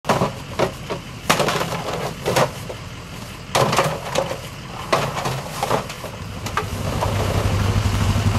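Hollow plastic goose decoys knocking and clattering against one another, with rustling, as they are handled and stuffed into a large fabric decoy bag. Near the end an ATV engine idles with a steady low hum.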